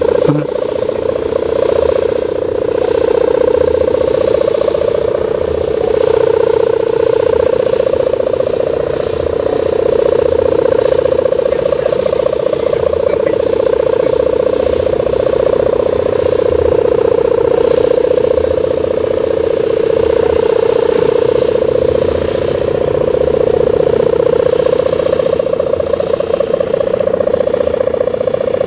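Steady droning hum of a sendaren, the mica-strip hummer bow on a large Javanese kite, vibrating in the wind as the kite flies. It holds one steady low note, swelling and easing a little in loudness.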